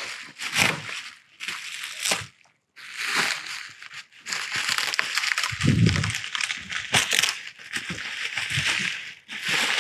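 Plastic packaging crinkling and rustling in irregular bursts as a new radiator is unwrapped and handled, with a low thump about six seconds in.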